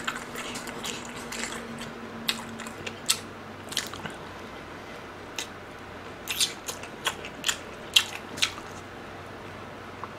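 A person biting and chewing sauce-coated fried chicken, with irregular sharp crunches and mouth clicks.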